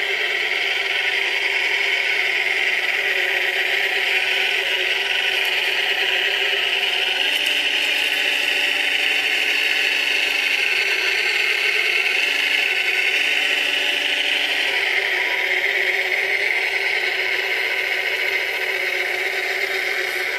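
Scale-model Caterpillar 966 wheel loader's motors and drive running with a steady high-pitched whir while it works. A lower steady hum joins in twice in the middle as it drives and moves its bucket.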